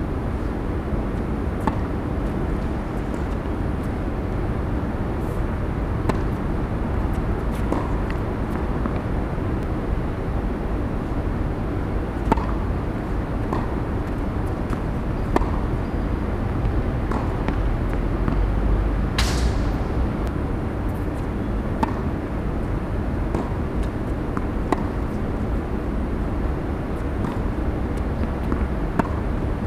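Tennis rallies on a hard court: sharp pops of rackets striking the ball and the ball bouncing, every second or few seconds, over a steady low outdoor rumble. About two-thirds of the way through, a brief high squeal.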